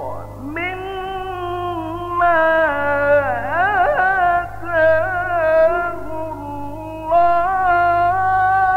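A solo male reciter chanting the Quran in the melodic tajweed style. He draws out long held notes over several phrases, with a quavering ornamented run near the middle. A steady low hum lies underneath.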